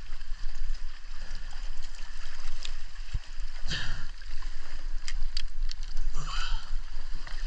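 Sea water sloshing and splashing around rocks, with several short knocks and clatters as a dive float and speargun are brought up and set down on the rock.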